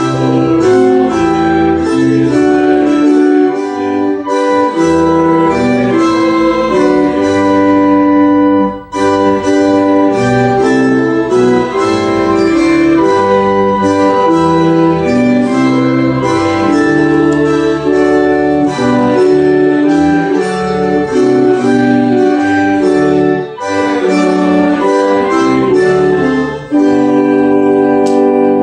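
Church organ playing a slow hymn tune in held chords, pausing briefly twice between phrases.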